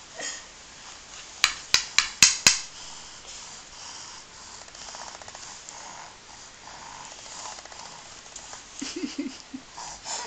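Wooden toy pieces knocked together by a baby: five sharp clacks in quick succession about a second and a half in, then softer handling and rattling of the pieces.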